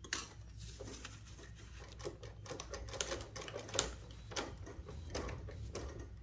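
Vintage Cornely L chainstitch embroidery machine stitching with an uneven run of clicks and clatters. The machine is starting to jam: the yellow wrapping thread's tension is set too tight.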